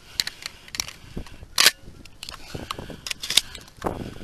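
Irregular sharp clicks and knocks close to the microphone, the loudest about a second and a half in.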